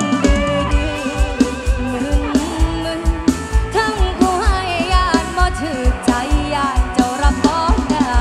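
Mor lam sing band music with a steady, fast drum beat and singing. It opens on held notes and moves into a sliding, ornamented melody from about four seconds in.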